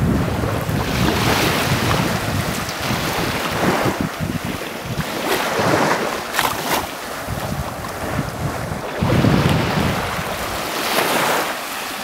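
Small waves washing onto a sandy beach, a hiss that swells and fades every few seconds, with gusts of wind rumbling on the microphone.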